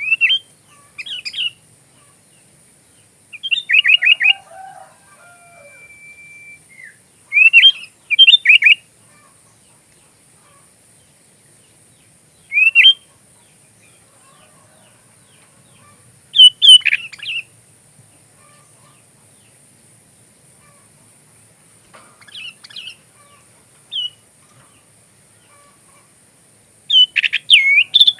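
Sooty-headed bulbul singing short, quick chirping phrases, one burst every few seconds with pauses in between. A faint steady high hiss lies under the song.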